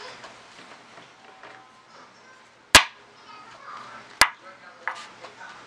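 Metal spoon knocking against a child's plate: two sharp clinks about a second and a half apart, the first the loudest, then a lighter tap.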